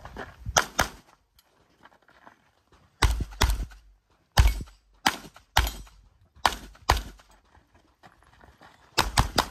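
Competition pistol firing fast pairs of shots in several strings, with short pauses between them and a quick burst of shots near the end.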